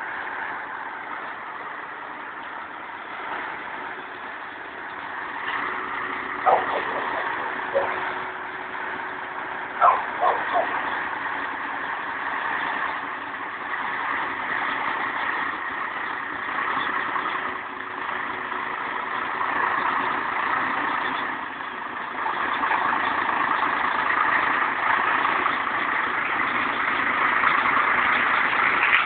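DAF XF heavy-haul tractor unit's diesel engine running at low speed as it pulls an oversize load on a multi-axle lowbed trailer. It grows louder about three-quarters of the way through as the rig draws close. A few brief, sharp sounds come about six to eight seconds in and again at ten seconds.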